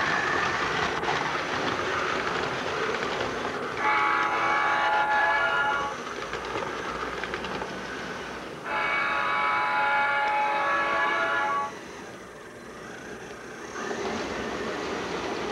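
American Flyer S-gauge model train running on the layout's track with a steady rumble, its buzzy horn sounding twice: about two seconds long starting about four seconds in, then about three seconds long starting near nine seconds.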